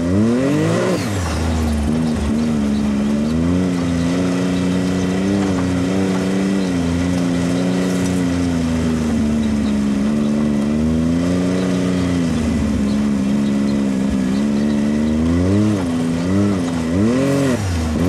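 Can-Am Maverick X RC Turbo RR side-by-side's turbocharged three-cylinder engine driving hard off-road, revving up sharply about a second in, pulling at fairly steady revs through the middle, then revving up and down again twice near the end.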